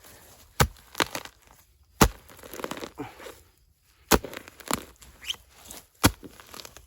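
A small digging shovel chopping and stabbing into root-filled soil, with about six sharp, irregularly spaced strikes and some scraping and tearing of roots in between.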